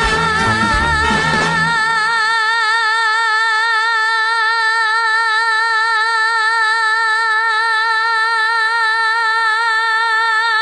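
A woman's singing voice holds one long, high note with a steady vibrato. The band backing drops away about two seconds in, leaving the voice alone.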